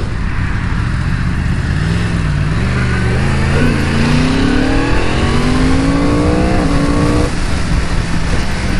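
Yamaha R1's crossplane inline-four engine under acceleration on the road. The engine note wavers low at first, then the revs climb steadily for about three seconds and drop off suddenly near the end, as when the throttle is closed for a gear change.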